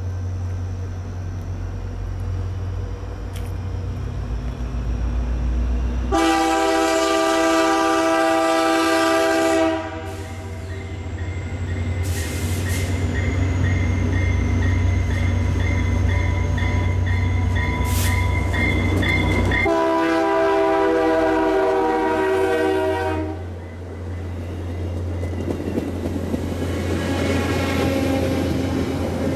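VIA Rail passenger train approaching and passing at speed, its diesel locomotive's horn sounding in long blasts, one about six seconds in and another about twenty seconds in, over a steady low engine rumble. As the locomotive goes by the horn drops in pitch (Doppler effect), and the rush of the coaches on the rails follows.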